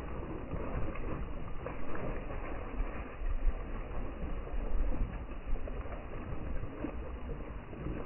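Rain falling on forest foliage, a steady hiss of drops with a low, uneven rumble beneath it.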